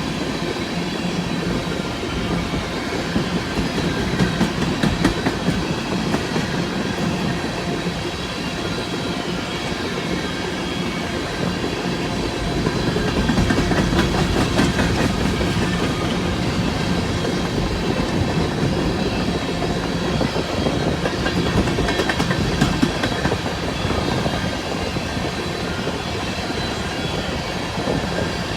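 Empty coal cars of a BNSF freight train rolling past, a steady rumble with wheels clicking over rail joints in clusters, loudest around the middle.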